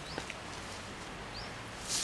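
Outdoor background hum with a bird giving a short rising chirp twice, about a second apart. Two faint clicks come just after the start, and a brief high hiss near the end is the loudest sound.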